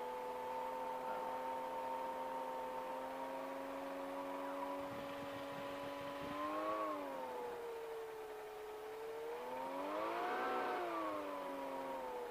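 Engine of a CGS Hawk ultralight aircraft running steadily, with the throttle changed twice so the pitch dips and rises about two-thirds of the way through and swells again near the end.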